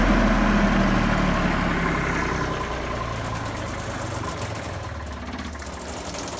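Engine of a Miller Big Blue 300 engine-driven DC welding generator running steadily, growing gradually fainter.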